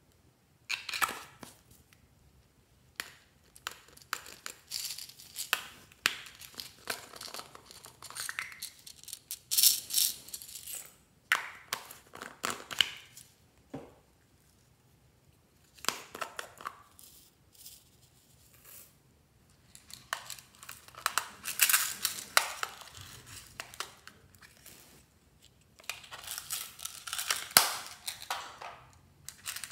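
Small plastic containers of sprinkles, beads and sequins being shaken and rattled, their contents dropping out onto slime in a glass tray, in irregular bursts of a second or two with short quiet pauses between.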